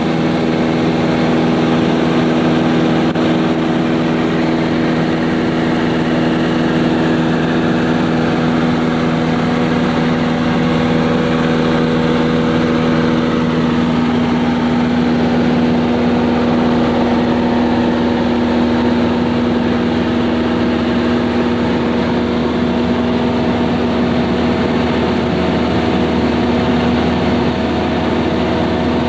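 Cessna Skyhawk II's four-cylinder Lycoming engine and propeller droning steadily in cruise, heard from inside the cabin. The tone shifts slightly about halfway through.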